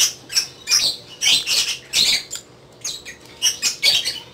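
Birds calling nearby in short, high chirps in quick, irregular succession.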